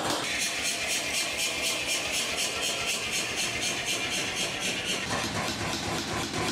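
Power hammer running and striking hot steel in a rapid, steady rhythm of about five blows a second, over the machine's running hum.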